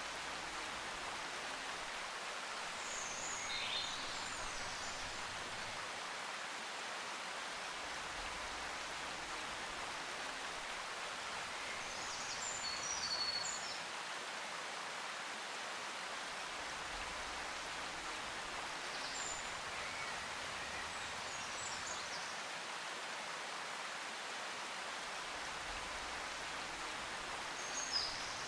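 Steady hiss of background noise, like rain or running water, with a few faint, short high chirps scattered through it, four small clusters in all.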